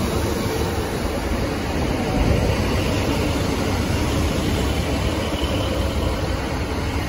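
Northern Sprinter diesel multiple unit moving along the platform close by: a steady diesel engine rumble mixed with wheel-on-rail noise.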